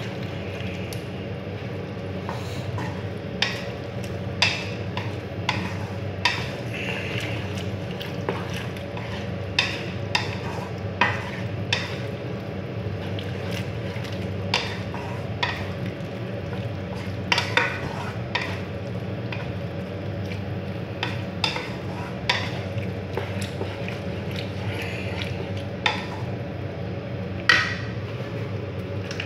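Wooden spatula stirring diced vegetables in a cream and cheese sauce in a nonstick frying pan: irregular scrapes and knocks against the pan over a steady low hum.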